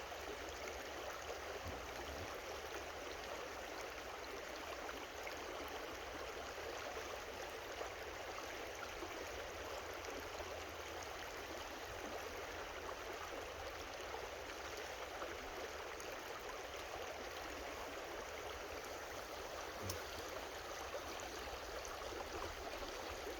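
A creek flowing with a steady rush of water, with one faint knock about twenty seconds in.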